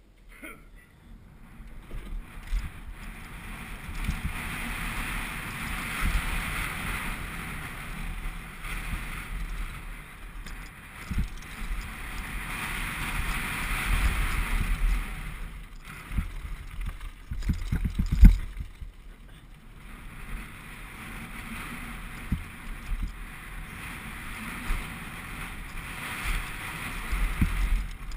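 A 2011 Specialized Big Hit downhill mountain bike running fast down a loose gravel and rock track: wind rushing over the helmet-camera microphone, tyres crunching, and the bike rattling and thumping over hits. The loudest thump comes about eighteen seconds in.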